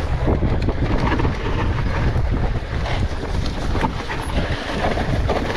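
Wind rushing over the microphone as a Rocky Mountain Altitude Powerplay electric mountain bike descends a rough trail, with a steady low tyre rumble and many small clattering knocks from the bike over stones and roots.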